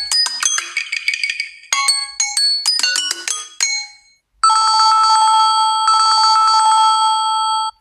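Samsung Galaxy A14 5G ringtones: a bright melody of chime-like notes that ends about four seconds in, then after a brief gap a different ringtone, a steady buzzing tone that holds for about three seconds and cuts off.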